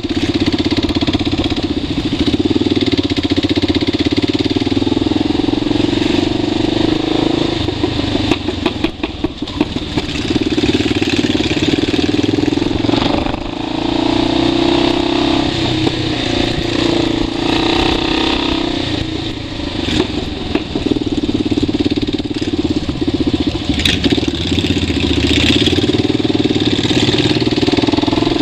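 Motorcycle engine running steadily under way, heard from on the bike with wind and road noise; the engine note drops away briefly a few times and picks up again.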